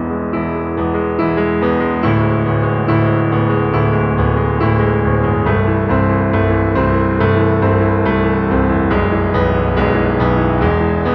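Background piano music, with notes played at an even, unhurried pace.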